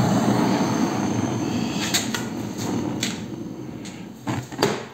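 Handheld gas torch on a screw-on gas cartridge burning with a steady rushing hiss as its flame heats a plastic ring on a metal cylinder. The hiss grows fainter after about three seconds, with a few light knocks.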